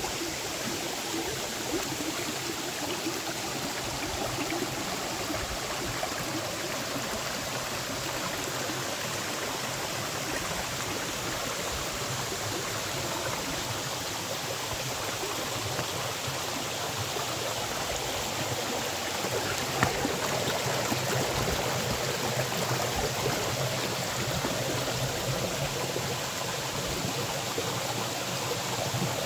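Creek water cascading over rocks: a steady rush of running water, a little louder in the last third, with one brief sharp click about two-thirds of the way through.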